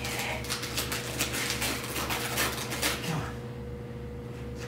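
Gift wrapping paper crinkling and rustling as the present is handled, dying away about three seconds in, over a steady low hum.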